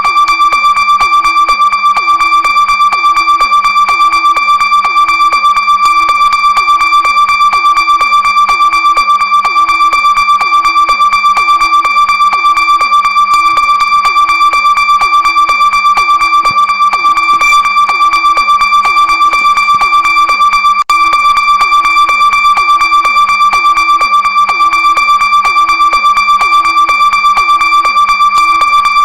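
Television emergency alert alarm tone: a loud, steady, high-pitched electronic tone held without a break, with a lower pulsing beneath it repeating evenly.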